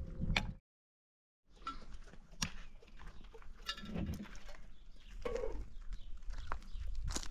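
Livestock bleating now and then, among scattered knocks and clicks. The sound cuts out completely for about a second near the start.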